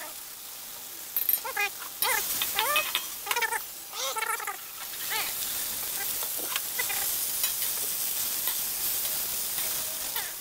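Napa cabbage sizzling as it is stir-fried in a hot wok with a spatula: a steady frying hiss that starts about two seconds in and evens out by the middle. Over the first half, several short pitched calls sound above the sizzle.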